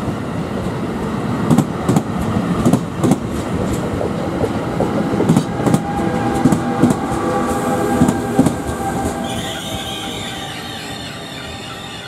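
Train rolling by, its wheels clicking over rail joints. About nine seconds in the clicking dies away and a high, steady wheel squeal takes over.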